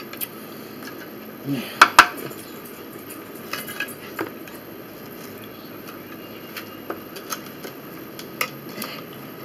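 Ceramic dinner plates and metal cutlery clinking and knocking against a wooden table as a plate is lifted and set back down. Two sharp knocks come about two seconds in, followed by scattered lighter clicks.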